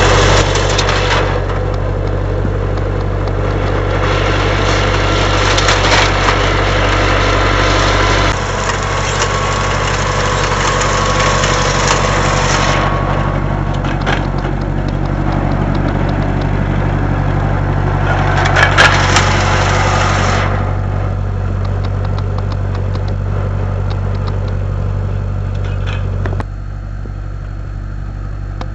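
Tractor engine running steadily, driving a vineyard trellising machine through the vine rows, with light clicks and a hiss on top at times. The sound changes abruptly several times.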